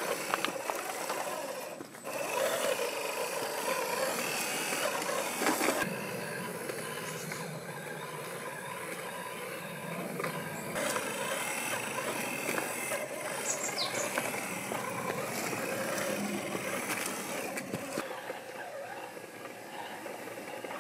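Small 550-size electric motor and gear drivetrain of a 1/8 scale RC Land Rover Defender crawler whirring as it climbs over rock, with scattered clicks and scrapes of the tyres and chassis on stone.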